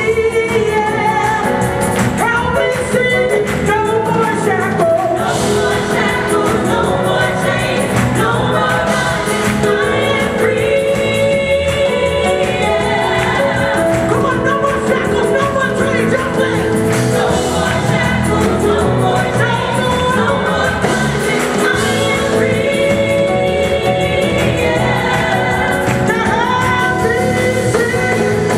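Live gospel music: several singers singing together with microphones over a full band of drums, bass guitar and keyboards, steady and loud throughout.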